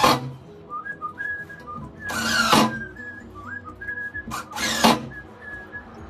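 Cordless drill-driver run in short bursts, about every two seconds, drilling pilot holes and driving screws to fix a night latch back plate to a door. Between the bursts someone whistles a tune.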